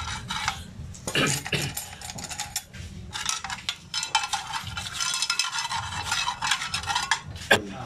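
A paintbrush scrubbing motorcycle clutch plates and springs in a metal pan of dark cleaning liquid, with metal parts clicking and clinking against the pan.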